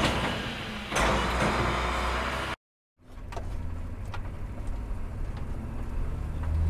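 Cartoon vehicle engine sound effects: a truck engine runs with a surge about a second in, then cuts off abruptly. After a brief silence, a quieter, steady car engine hum starts and grows slightly louder toward the end.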